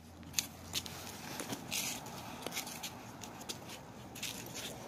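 Light footsteps and scattered clicks of people walking on a concrete sidewalk, with rustling of clothes and backpacks and a short rustle about two seconds in.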